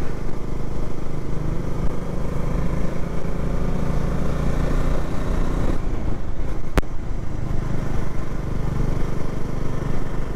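Bajaj Dominar 400 motorcycle's single-cylinder engine running under way. The engine note shifts about six seconds in, with one sharp click a moment later.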